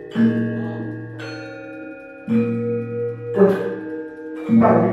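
Javanese gamelan playing: low gong strokes about two seconds apart, each ringing on, with higher bronze metallophone notes struck over them.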